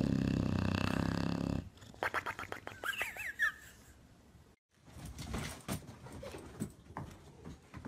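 English bulldog snoring in its sleep: one long, loud, rasping snore at the start, followed by quieter snuffles and a brief high squeak. After a short break, scattered soft knocks and scuffs follow.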